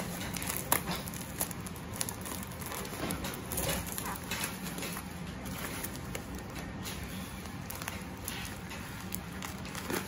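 Plastic bubble wrap crinkling and crackling as it is handled and cut open with scissors, with irregular sharp clicks, the loudest about three-quarters of a second in.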